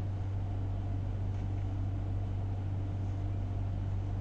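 Steady low hum with a faint even hiss: background room tone with no distinct event.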